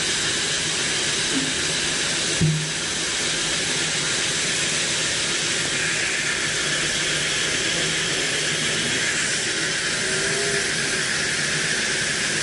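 Band sawmill blade cutting through a teak log, giving a steady hissing rush of noise. There is one short knock about two and a half seconds in.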